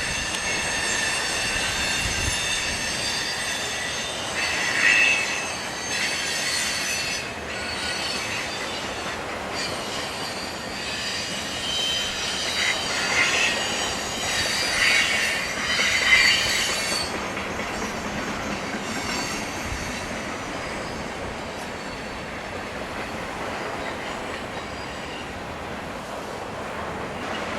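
BNSF freight train cars rolling past with their wheels squealing on the rails. The high-pitched squeal comes and goes and dies away after about 17 seconds, leaving the rumble of the cars and wind noise on the microphone.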